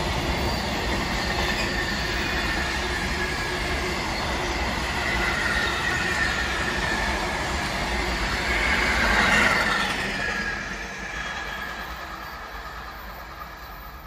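Freight train wagons rolling past on the main line, a steady rumble of wheels on rail with a high-pitched ringing note from the wheels that peaks about nine seconds in, then fading away as the end of the train passes.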